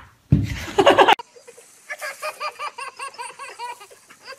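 A baby laughing hard: a run of quick, pitched bursts of belly laughter, several a second. Before it, about half a second in, comes a loud burst of sound lasting under a second that cuts off abruptly.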